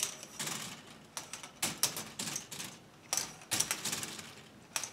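Plastic balls rolling and clattering through the tracks and elements of a K'NEX ball machine: irregular clicks and knocks, some louder than others, coming several times a second.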